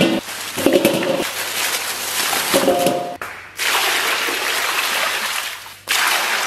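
Water poured from a stainless steel bowl onto cow hooves in a large stainless steel basin, splashing in several pours, with a break a little past three seconds in and another just before the end. In the first few seconds there are short ringing clanks from the metal bowls.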